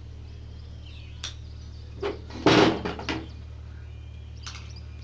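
Metal parts of a small homemade turbojet engine being handled and fitted together by hand on a wooden table: a few knocks and clinks, the loudest a short clattering knock about two and a half seconds in.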